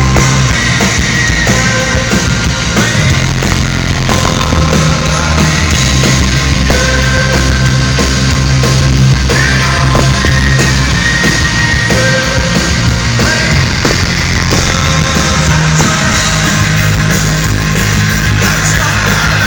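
Live rock band playing loudly through a venue's PA at a soundcheck, with sustained bass notes under guitars.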